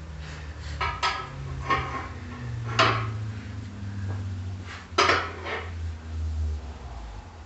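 Hammer blows on steel: several sharp metallic clanks that ring briefly, the loudest about three seconds and five seconds in, as a part is tapped into place on the truck's frame. A low drone runs underneath.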